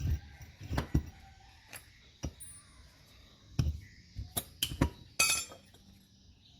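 Metal tools and alternator parts clinking and knocking as they are handled during a bearing change: about ten sharp separate hits, the one about five seconds in ringing briefly.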